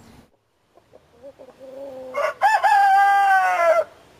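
A rooster crowing once, about two seconds in: a loud call that rises, holds one long note and falls away at the end, after a few soft clucks.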